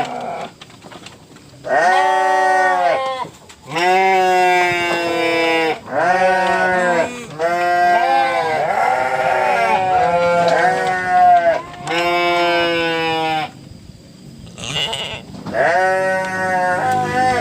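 Goats bleating over and over, a run of long wavering calls one after another, with a short break about three quarters of the way through.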